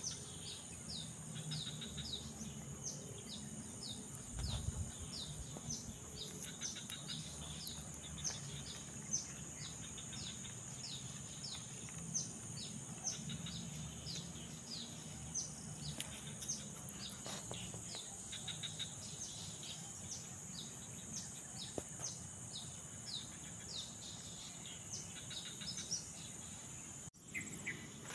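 Swamp-side ambience: a steady high insect hum with short high chirps repeating two or three times a second, from birds or insects. A brief drop-out about a second before the end.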